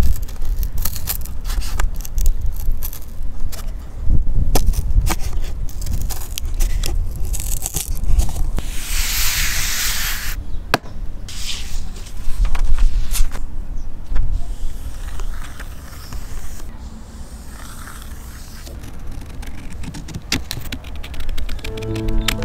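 Scissors cutting through corrugated cardboard and then paper: many sharp snips and scraping sounds, with a longer stretch of hiss a little before halfway through.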